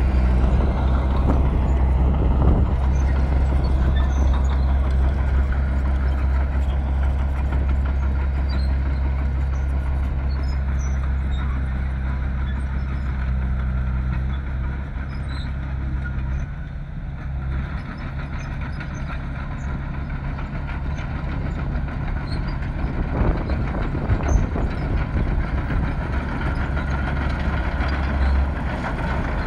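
Bulldozer's heavy diesel engine running under working load, with a steady low hum that eases a little past the middle and then builds again. A few short metallic knocks come through, one near the start and a couple in the second half.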